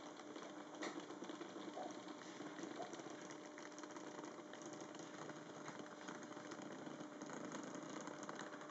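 Fleischmann model steam locomotive from a 1963 start set running along its track: the small electric motor and gearing give a steady hum.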